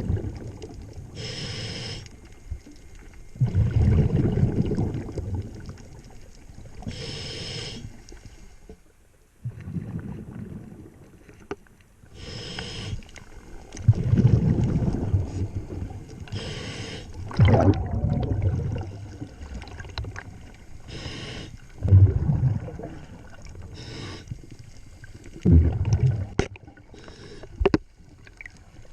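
A scuba diver breathing underwater through a regulator. Each breath is a short hissing inhale followed by a loud bubbling exhale, repeating every few seconds.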